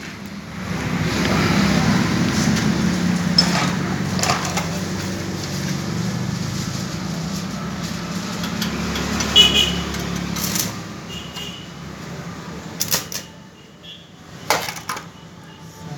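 Electric arc welding on steel: a steady hiss over a low hum, with a few sharp pops, running for about nine seconds before it stops. A few sharp metal knocks follow near the end.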